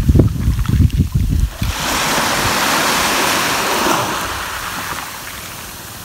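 A small sea wave washing up a dark sand and pebble shore: its hiss swells about two seconds in, then slowly fades away. Wind buffets the microphone in the first second or so.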